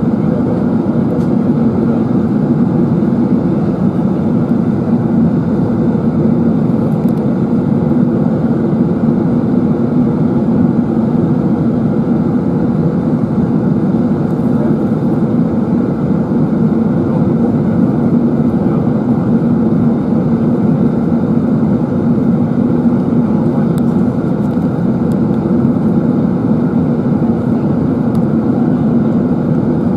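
Steady cabin noise inside an Airbus A380-841 in flight: the rushing of airflow and the drone of its Rolls-Royce Trent 970 engines, heard through the cabin wall over the wing.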